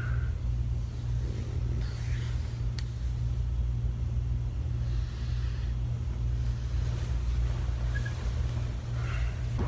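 A steady low rumble with a few faint, brief sounds on top.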